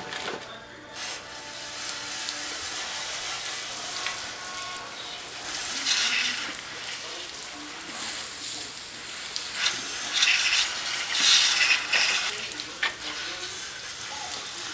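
Garden hose spray nozzle spraying water onto a grease pail and the concrete floor around it, rinsing off degreaser and loosened grease. It is a steady hiss that starts about a second in and swells louder at times as the spray is moved over the pail.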